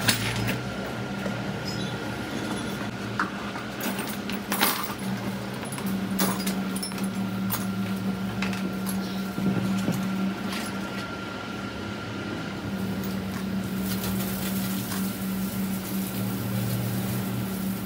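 Workshop sounds during a truck gearbox rebuild: a steady low hum with a faint high tone over it, and scattered sharp metallic clicks and knocks from tools and gearbox parts being handled.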